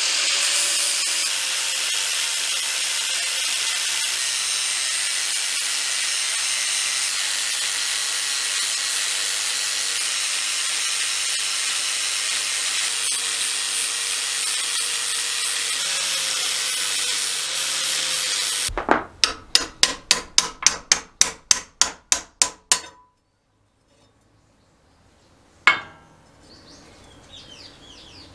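Angle grinder grinding the rivet heads off a rusty riveted mower blade bar: a loud, steady grinding hiss with a faint motor whine that stops sharply about 19 seconds in. Then a fast, even run of about eighteen sharp metal knocks, about four a second, and one more knock a few seconds later.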